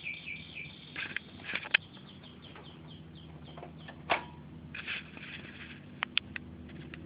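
High-voltage arcing inside an opened Arçelik CRT television: irregular sharp snaps and crackles, loudest about four seconds in and a quick pair around six seconds, over a faint steady hum.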